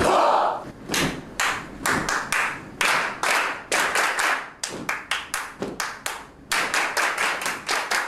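A group clapping hands together in rhythm, about two to three claps a second, with a short break about six seconds in. A brief burst of voices at the very start.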